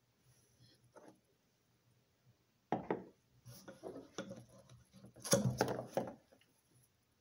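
Knocks and scrapes of a Bunsen burner's metal base and its rubber gas hose being handled on a lab bench: a cluster of clunks about three seconds in and a louder run of knocks and rubbing just after five seconds.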